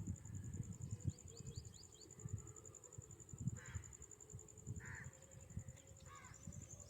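A crow cawing three times, each call a second or more apart, over a steady high-pitched pulsing buzz, with a quick run of high chirps from a small bird near the start.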